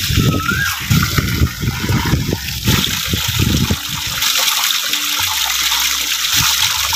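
Water pouring steadily from a bamboo spout, with splashing and sloshing for the first few seconds as fish are rubbed clean by hand in a water-filled clay pot.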